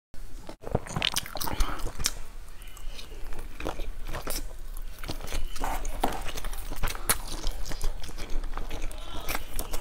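Close-miked eating of spiced fried skewered sausages: irregular biting, crunching and wet chewing sounds.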